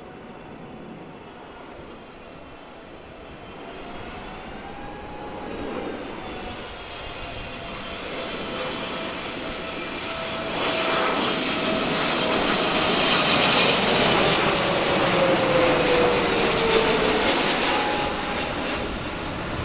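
Boeing 777-300ER's GE90 turbofan engines on final approach, growing steadily louder as the airliner nears, with a rushing roar and a high fan whine. In the last few seconds a droning tone drops in pitch as the jet passes close by.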